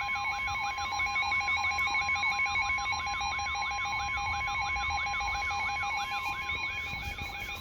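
Emergency alert attention tones: several electronic alarm tones sounding together, two steady tones under a warble that sweeps up and down about four times a second and a higher tone flipping rapidly between two pitches. They cut off just before the end.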